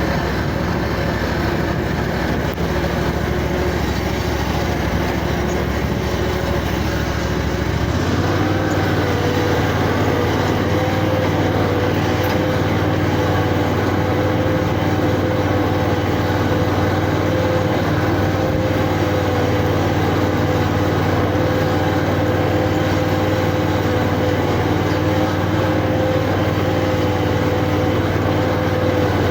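Riding lawnmower engine running while the mower is driven; about eight seconds in its speed picks up and it holds a steady, higher hum.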